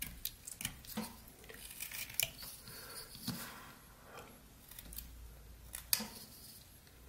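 Rough Rider pocket knife blade cutting into hard, old pine while whittling: short, irregular slicing and scraping strokes with sharp clicks, several a second at times, with pauses between.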